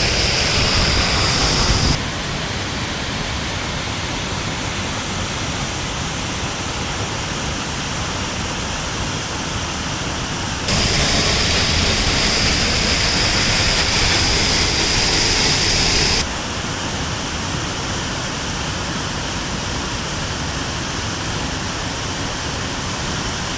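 Waterfall pouring as a steady, loud rushing hiss. It jumps louder and brighter abruptly at about eleven seconds in, drops back just as abruptly about five seconds later, and also drops at about two seconds in, as if from a closer spot to a farther one.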